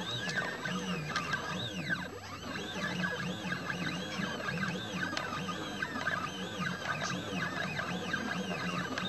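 Stepper motors of a diode laser CNC engraver whining as the head traces curved outlines, the pitch repeatedly gliding up and down with each curve, over a steady low hum.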